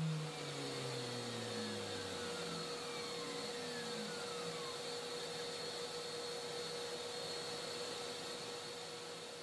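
Wood router in a homemade router table spinning down after being switched off, its pitch falling and fading over the first few seconds. Meanwhile the dust extractor connected at the table keeps running with a steady hiss and hum.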